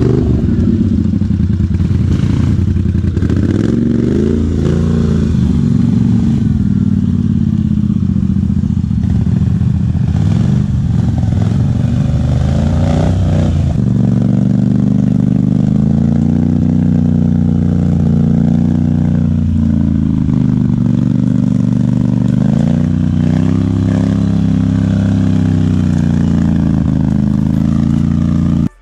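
Off-road vehicle engine running under way, its pitch rising and falling gently with the throttle.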